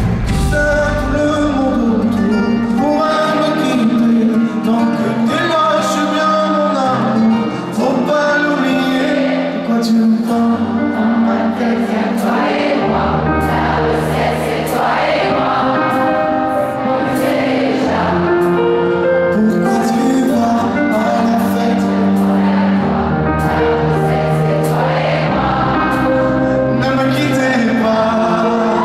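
A man singing a pop song live into a microphone over backing music of held chords and bass.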